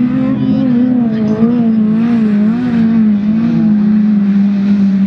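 Engines of several autocross touring cars racing, held at high revs, the pitch wavering up and down as the drivers work the throttle.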